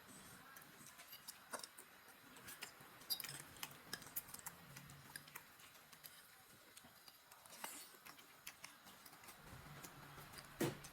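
Faint, irregular clicks and smacks of someone eating spaghetti close to the microphone, with a few louder clicks about three seconds in and near the end.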